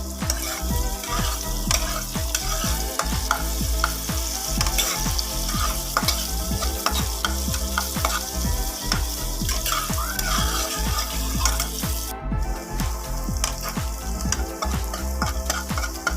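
Chopped onions sizzling in hot oil in a kadai while being fried soft, with a spatula stirring and scraping against the pan in frequent clicks.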